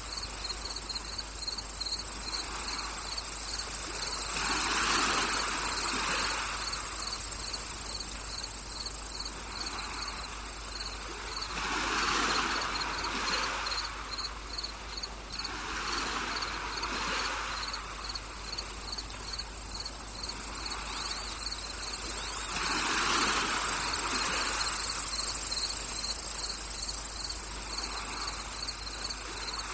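Nature-sound bed of crickets and other insects chirring: a steady high shrill with a quick, regular chirp pulsing over it, and soft rushing swells every five to seven seconds.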